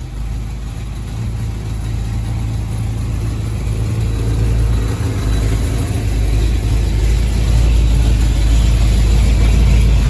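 1983 Chevy Silverado's engine idling through dual glass-pack exhausts, warmed up, with a rattle that only appears once it is hot; the owners take it for something heat-related that expands as it warms. The sound grows steadily louder over the seconds.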